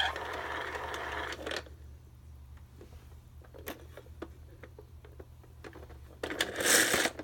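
Mattel See 'n Say talking toy: its scratchy, noisy animal sound (the owl's) runs for the first second and a half and then stops. A quieter stretch of light plastic clicks follows as the toy is handled and set. About six seconds in, the toy starts playing again with a scratchy hiss.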